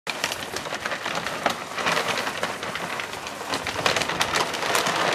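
Dry dog kibble pouring out of a foil bag onto a concrete floor, a dense stream of many small hits that goes on steadily.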